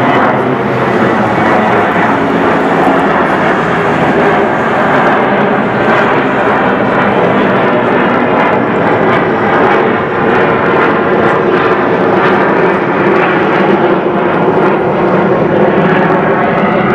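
McDonnell Douglas MD-82 airliner climbing out at takeoff thrust, its two rear-mounted Pratt & Whitney JT8D low-bypass turbofans giving a loud, steady jet noise. The highest hiss thins out about five seconds in.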